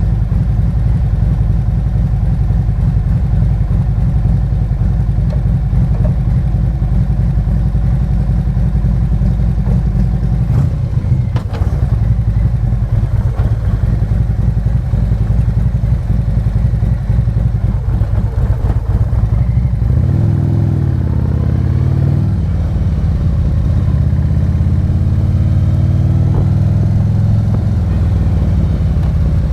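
Harley-Davidson Road King's 117 cubic-inch V-twin engine running under way. The note changes about ten seconds in and climbs steadily in the last third as the bike accelerates.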